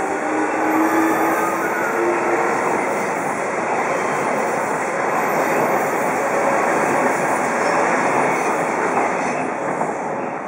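Electric train passing close by at a level crossing: a loud, steady rush and rumble of wheels on rails, easing slightly near the end.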